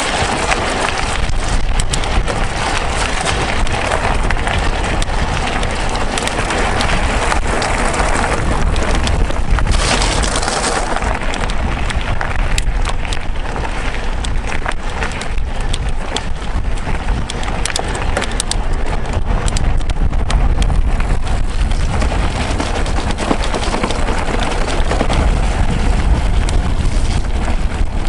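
A mountain bike rolling over a rough gravel track, with tyres crunching and a dense run of rattling clicks from the bike. A constant low rumble of wind buffets the microphone.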